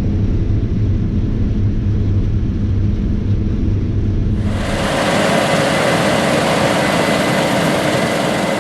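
A 550 hp Case IH 9250 Axial-Flow combine running while harvesting wheat: a deep, steady engine rumble, which about four and a half seconds in gives way abruptly to a loud hissing rush with a faint steady whine.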